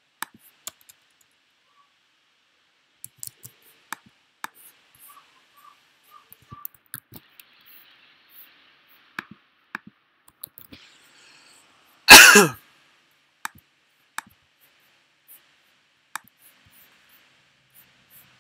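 Scattered light clicks of a computer being operated, and one loud, short cough about twelve seconds in.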